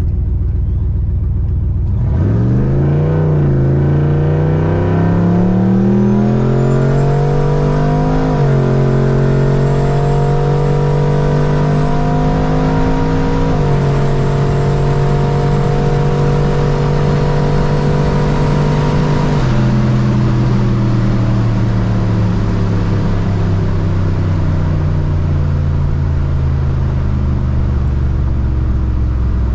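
Turbocharged 6.0 L LQ4 V8 at wide-open throttle, heard from inside the cabin. The engine note climbs steadily, dips briefly at two upshifts about 8 and 13 seconds in, then falls away as the throttle is lifted about two-thirds of the way through. A thin, high turbo whistle rides over the pull until the lift.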